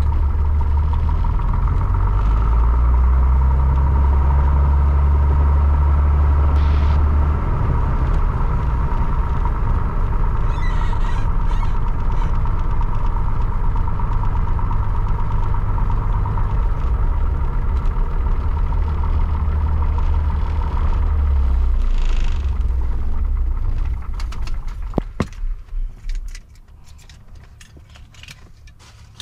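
Piper Cherokee Six's single piston engine running at low power while taxiing. About 24 seconds in it is shut down and stutters to a stop over a couple of seconds, leaving a much quieter cabin.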